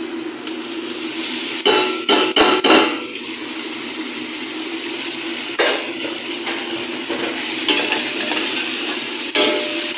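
Boiled vermicelli tipped from a metal colander into a steel pot of frying egg and stirred with a metal spoon: a quick run of four sharp clanks of metal on the pot about two seconds in, single clanks later on, over a steady hiss of frying.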